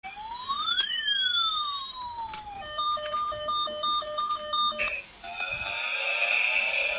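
Electronic siren switching through patterns: a single rising-and-falling wail, then a fast hi-lo two-tone warble about three times a second, and after a short break about five seconds in, a different wail with several pitches sounding together.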